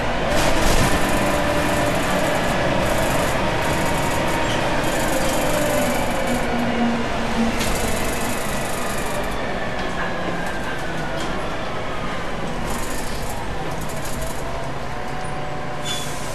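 Transbus Trident III double-deck bus with a Cummins ISMe six-cylinder diesel and Voith DIWA automatic gearbox, heard from on board while under way. A steady drivetrain rumble, with whining tones that rise in the middle and then fall.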